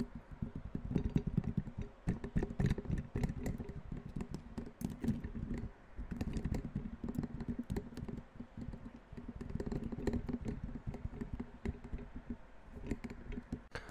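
Fast, irregular tapping: many dull taps a second, with a brief pause about six seconds in.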